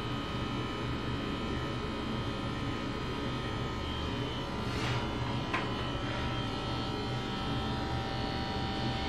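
Andis electric hair clippers running with a steady buzz while being worked over the hair, with a couple of faint ticks about five seconds in.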